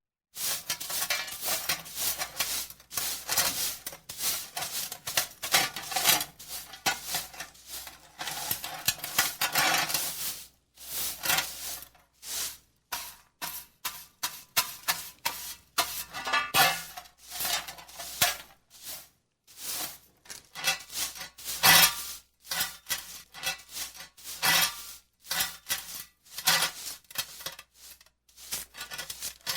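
Small hand whisk broom sweeping grit across concrete and onto a metal dust pan: a long run of quick, short brushing strokes in bursts with brief pauses, the pan's metal clinking now and then.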